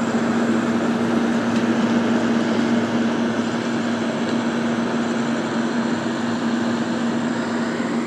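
Late-1960s Sears Coldspot 18,600 BTU window air conditioner running, heard at its outdoor side: a steady, loud hum over the even noise of its fan, which has a new Fasco motor. It grows a little fainter near the end.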